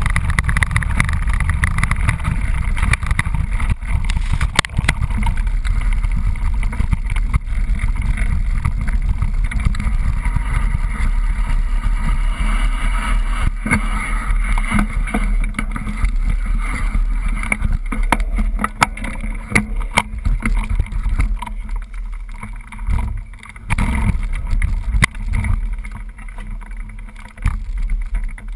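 Mountain bike ridden over a trail: steady rumble of wind on the action camera's microphone with rattles and knocks from the bike over rough ground. The rumble eases and turns patchy in the last several seconds.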